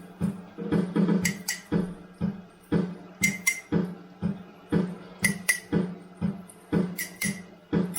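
Looping found-sound beat: a low thud about twice a second over a steady low hum, with a pair of bright, ringing clinks like struck dishes about every two seconds.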